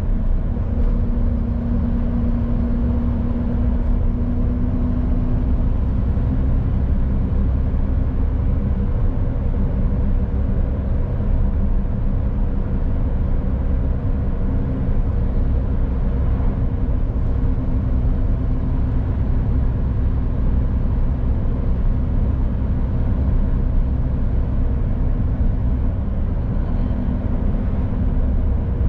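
A 2018 Mercedes-Benz Actros truck of about 20 tonnes driving at a steady pace: a low, steady engine drone with road and tyre noise, without gear changes or revving.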